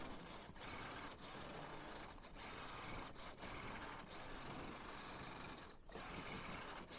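Redcat Gen8 V2 RC crawler's electric motor and gear drivetrain running as it crawls through deep snow on Interco Super Swamper tires, faint and steady with several brief breaks.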